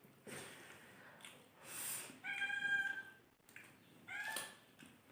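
A domestic cat meowing twice: a longer, steady meow about two seconds in and a shorter one a second or so later.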